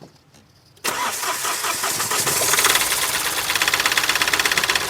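Mahindra TUV300's three-cylinder diesel engine cranking and catching from cold about a second in, then idling with a fast, even clatter. The knocking 'tak' noise under diagnosis comes and goes at this idle, and replacing the high-pressure fuel pump has not cured it.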